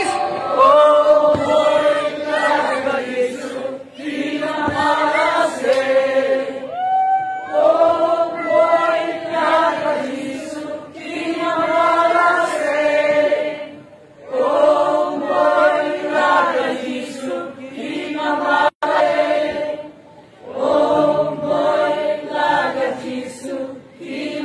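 Large crowd singing a worship song together, in sung phrases separated by short breaks.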